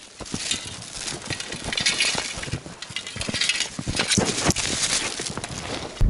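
Footsteps crunching through snow and brushing past dry twigs and bare branches. A few light metallic clinks come from a hand ice auger being carried along.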